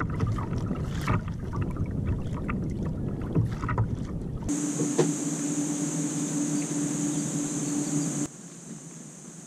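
A small boat out on the water: wind buffets the microphone and water knocks and splashes. About halfway this gives way to a steady hum, which cuts off suddenly near the end.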